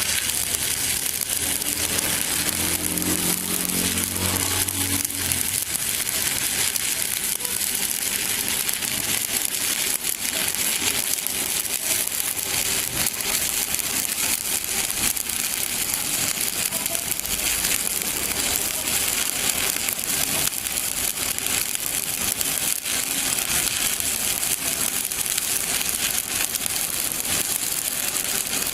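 Stick-welding (SMAW) arc crackling and sizzling steadily as the electrode burns along the joint, with a low hum under it for the first five seconds or so.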